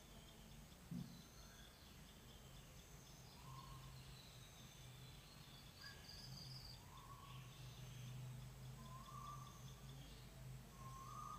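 Near silence: faint room tone with a steady low hum, and faint bird calls repeating every second or two. A soft knock about a second in.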